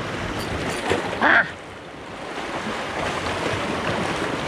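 Small sea waves washing against a rocky shoreline, with wind on the microphone as a steady rush, and one brief louder sound a little over a second in.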